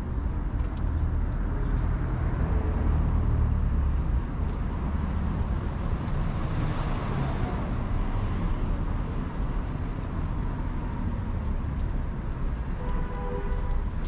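City street traffic: a steady low rumble of cars, with one vehicle passing close about halfway through. A short pitched sound comes near the end.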